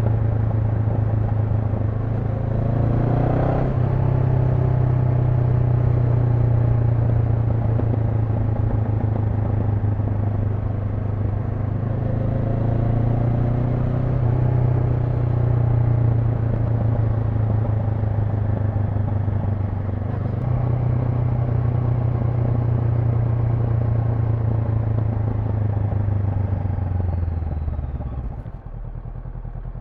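Honda NX500's 471 cc parallel-twin engine running steadily under way, with a brief rise and drop in engine pitch about three seconds in, like a rev and gear change. Near the end the engine note falls and gets quieter as the bike slows.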